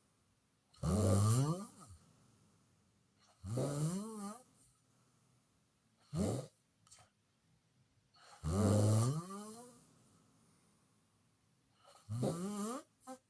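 Loud snoring: five snores a few seconds apart, each rising in pitch, one of them much shorter than the rest.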